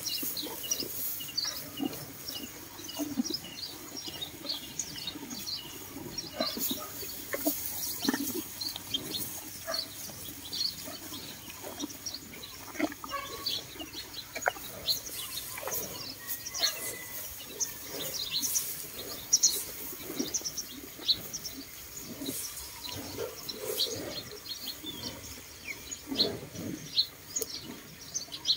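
Dairy cows munching and pulling at hay and straw, with irregular crunching and rustling strokes, some loud and close. Small birds chirp repeatedly throughout.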